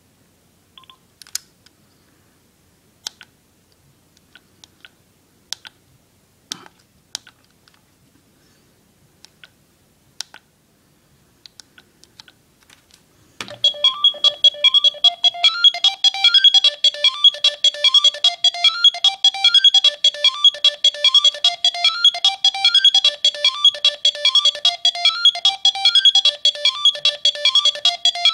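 Scattered sharp clicks of a Philips Fisio 625 mobile phone's keys being pressed, then about halfway through one of its original ringtones starts: a fast repeating electronic melody with a steady high tone running under it.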